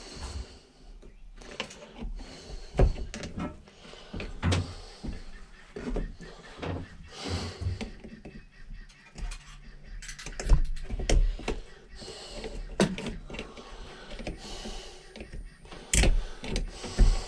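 Irregular clicks, knocks and clatter of hand tools and small metal carburetor parts being handled and set down during carburetor disassembly, with a few louder knocks about ten seconds in and near the end.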